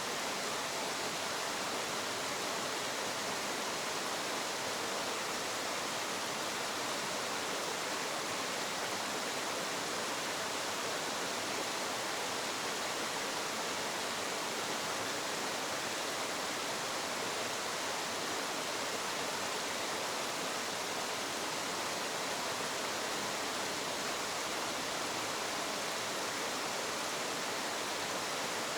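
Small waterfall splashing, a steady even rush of falling water.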